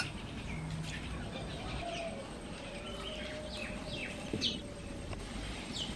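Birds chirping: several short, high chirps that drop in pitch, clustered in the middle and again near the end, over a low steady background noise.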